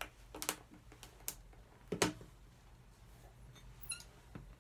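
Pincers levering the worn heel off a leather western boot: a handful of sharp clicks and cracks as the heel breaks away, the loudest about two seconds in, and a short high squeak near the end.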